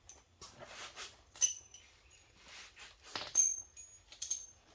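Steel sockets and hand tools clinking together: a few light metallic clinks that ring briefly, the loudest a little past three seconds in, as a socket is sorted out for the breather bolts.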